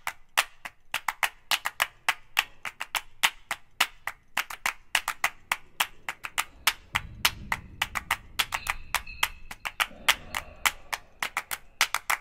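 Background music track of sharp, wood-block-like percussive clicks, about five a second in an uneven rhythm.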